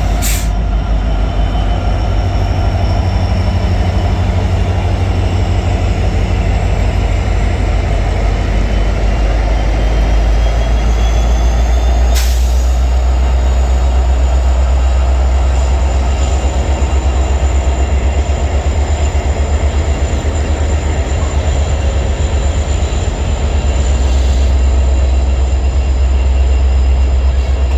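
Train rolling past with a steady low rumble, thin high-pitched wheel squeal above it, and a sharp click about twelve seconds in.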